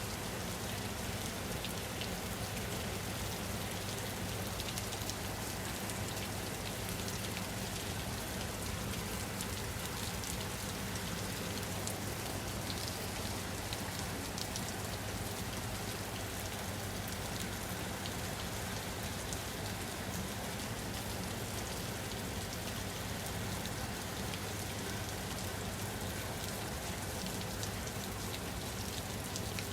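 Steady rain falling on a surface: a continuous, even hiss of drops with faint individual drop ticks, over a steady low rumble.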